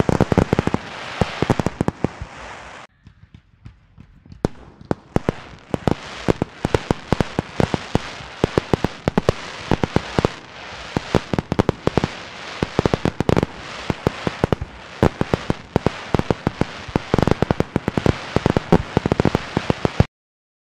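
Fireworks display going off in rapid, dense volleys of bangs and crackles, with a short lull about three seconds in. The sound cuts off suddenly near the end.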